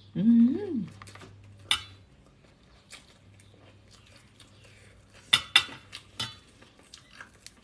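A short hummed "mmm" from a person eating, rising then falling in pitch, followed by a few sharp clinks of a metal spoon against a stainless-steel bowl, the loudest pair about five seconds in.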